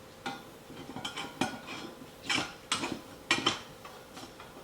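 Irregular clinks and knocks of flat-pack end-table parts and hardware being handled and fitted together, about ten in a row, the loudest near the middle.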